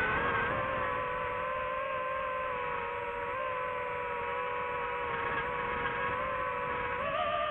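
DJI FPV drone's motors and propellers whining steadily in flight. The pitch steps up about seven seconds in as the throttle is raised.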